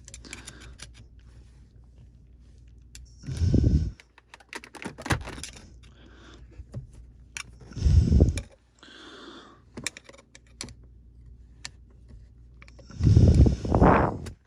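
Small clicks, ticks and scrapes of a hand tool working the shift lever's poly retaining ring in the shifter housing, turning it about 90 degrees to free the old gear shifter. Three louder bursts of handling noise come about three and a half, eight and thirteen seconds in.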